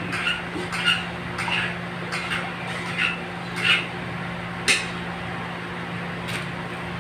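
Rice being washed by hand in an aluminium pot of water: a rhythmic wet swishing about every two-thirds of a second, ending with a sharp click about two-thirds of the way through. A steady low hum runs underneath.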